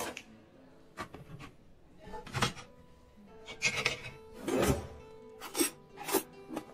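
Background music with a series of brief rubbing and scraping handling noises from household items, about seven in all, the loudest a little past halfway.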